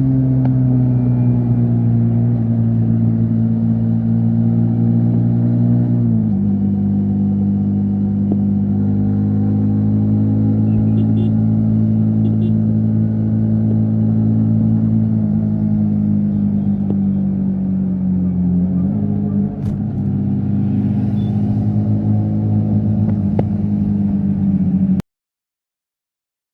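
Yamaha MT-15 V3 single-cylinder engine running steadily at highway speed, its pitch easing slowly lower with small steps about six and nineteen seconds in. The sound cuts off abruptly near the end.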